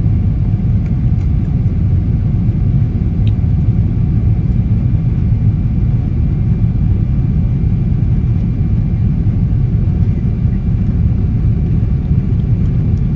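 Steady low rumble of airliner cabin noise in flight, the engines and rushing airflow heard from a window seat.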